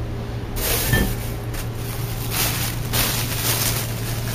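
Rustling and handling noise while searching for a bag, with the camera jostled against clothing and a knock about a second in, over a steady low hum.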